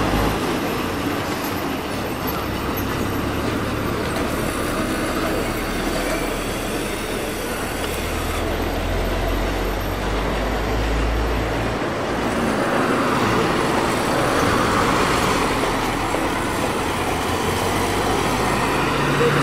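Road traffic passing close by: a truck's low engine rumble that fades about two-thirds of the way through, then the rising hiss of another passing vehicle.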